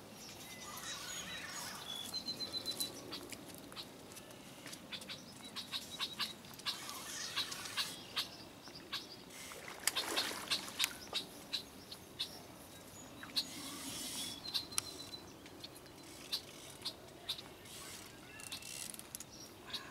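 Hooked carp splashing at the surface close to the bank while being landed, with a louder splash about halfway through, amid many scattered sharp clicks and ticks. Birds chirp faintly now and then.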